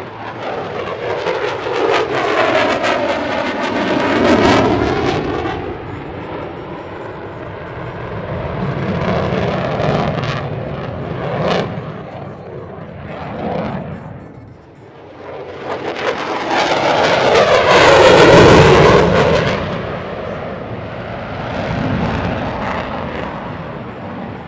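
F-22 Raptor's twin Pratt & Whitney F119 turbofan engines roaring as the jet manoeuvres past, swelling in two loud passes, the louder one near the end, with sweeping changes in tone as it goes by.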